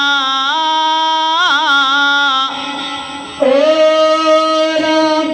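Male voices singing a Pashto naat with no instruments, drawing out long held notes through a microphone. About a second and a half in, the note wavers in an ornament. The voice then drops quieter, and about three and a half seconds in a second singer comes in on a new, louder held note.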